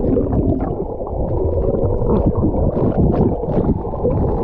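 Muffled, continuous rumble and gurgle of water picked up by a GoPro action camera held underwater in the stream pool, with faint ticks over it.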